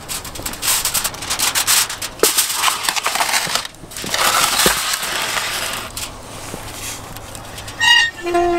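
Foil-covered metal baking tray handled and slid into a wood-fired brick oven, with crackling, clicking and scraping. About eight seconds in, the oven's metal door is set in place with a short metallic squeal falling in pitch.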